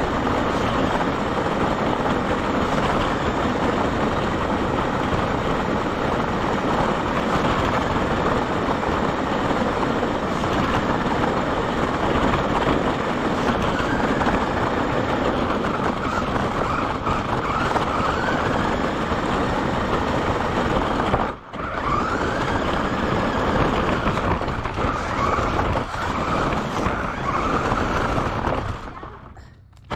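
Onboard sound of an RC car driving over a gravel path: a steady, loud crunching rattle of its tyres on the gravel, with the motor's pitch rising and falling as it speeds up and slows. It cuts out briefly about two-thirds of the way through, then dies away near the end as the car slows to a stop.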